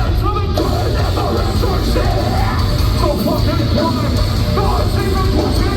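Heavy metal band playing live and loud, with distorted guitars and drums under harsh screamed vocals.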